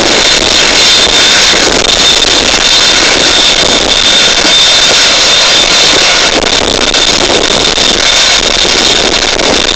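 Air ambulance helicopter, a Eurocopter EC135, idling on the ground with its turbine engines running. It makes a loud, steady high whine over a rushing noise.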